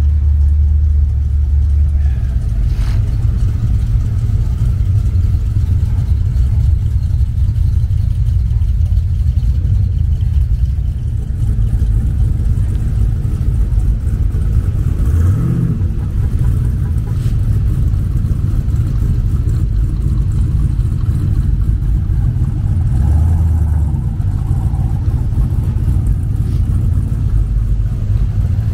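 Engines of classic cars rumbling low as they roll slowly past one after another, with one engine revving up and back down about halfway through.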